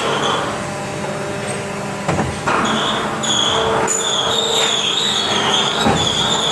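Toy car part making machine running with a steady mechanical noise and hum; a wavering high whine joins in about two and a half seconds in.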